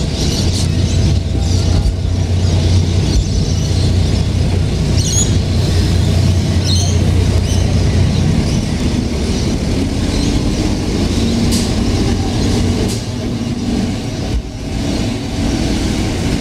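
City bus engine idling steadily, then the bus pulls away with its engine note climbing in steps as it accelerates.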